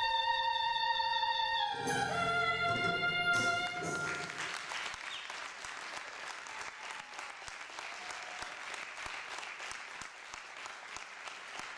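A boy's voice holds a long final sung note over backing music, and the song ends about four seconds in. Then an audience applauds.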